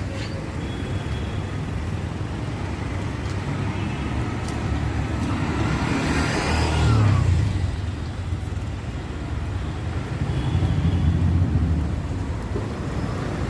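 Street traffic noise: a steady low rumble of cars, with a vehicle passing close about seven seconds in and another swell near the end.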